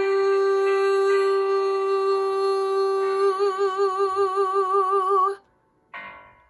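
A woman's solo singing voice holding the song's long final note, steady at first, then swelling into a wide vibrato about halfway through, before cutting off sharply about five seconds in. A brief soft noise follows.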